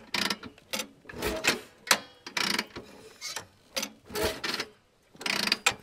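Mechanical gear sound effect: clicking and clanking of turning gears, about three strokes a second, irregularly spaced.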